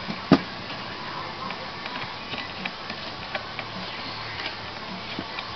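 Parts and cables being handled inside a desktop computer's metal case: one sharp knock about a third of a second in, then scattered light clicks and rattles, over a faint steady hum.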